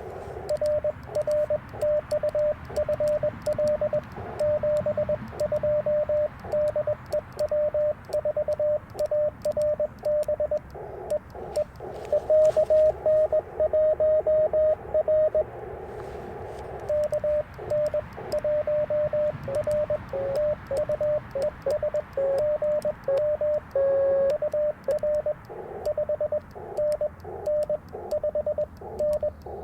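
Morse code (CW) from the Icom IC-705 transceiver's speaker: a single tone keyed rapidly on and off in dits and dahs, broken by stretches of narrow band hiss from the receiver. A few characters come through at a slightly lower pitch about two-thirds of the way in.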